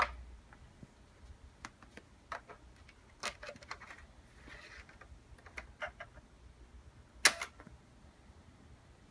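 Light plastic clicks and taps as a 3.5-inch floppy disk is handled and pushed into the floppy drive of an Apple PowerBook 180. The sequence ends in one sharp clunk about seven seconds in, as the drive mechanism catches and seats the disk.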